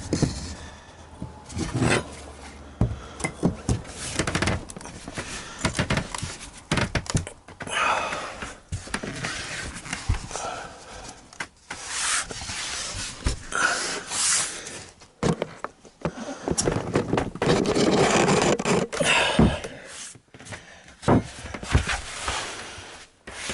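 Particle board subfloor panels being worked into place by hand: irregular knocks, thuds and scraping of board on board, with louder scraping stretches around the middle and near the end.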